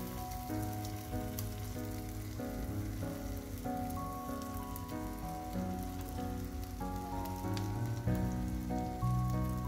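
Background music of held notes, with the chord changing about every half second, over a light crackling sizzle from the masala frying in the steel kadhai as cooked rice is added.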